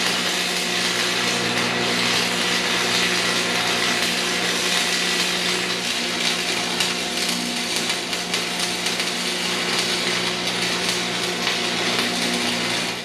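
Electric arc welding on steel: a steady, crackling arc over a constant electrical hum, running without a break and cutting off suddenly at the end.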